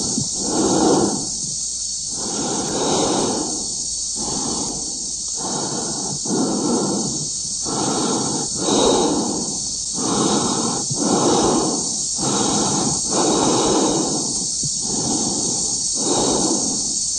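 Heavy, rhythmic breathing, in and out about once a second, over a steady high hiss.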